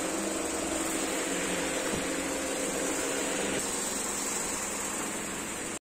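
A steady machine hum with a hiss and a few constant low tones. It cuts off suddenly at the end.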